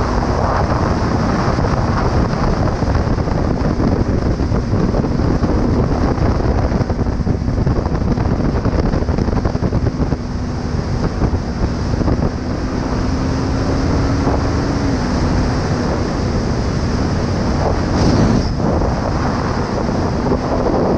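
Heavy wind noise on the microphone of a riding motorcycle, with the Kawasaki ER5's parallel-twin engine note faintly beneath it. The engine holds a steady pitch, rises slowly, then drops about fifteen seconds in. A brief louder bump comes near the end.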